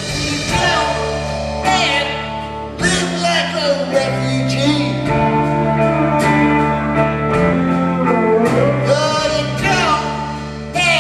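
Live rock band playing: electric guitar lines bending over sustained bass notes and drums.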